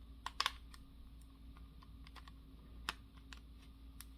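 Faint, irregular clicks and taps of the plastic pieces of a Bandai Ultimagear Millennium Puzzle being handled and fitted together, with a couple of sharper clicks about half a second in and near three seconds.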